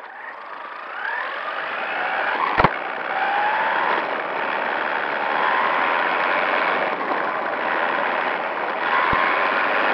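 Brushless electric motor of a 1/14-scale RC buggy whining, its pitch gliding up again and again as it accelerates, over a steady rush of tyre and wind noise, heard from a camera mounted on the car. One sharp knock about two and a half seconds in.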